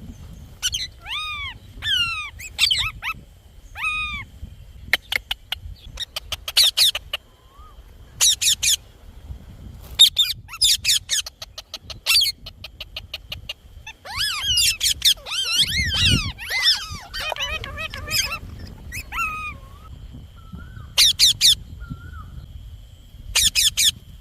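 Indian ringneck parrot calling: repeated shrill screeches in quick bursts, several falling whistled calls near the start, and a stretch of busy chattering in the middle. A low bump sounds about two-thirds in.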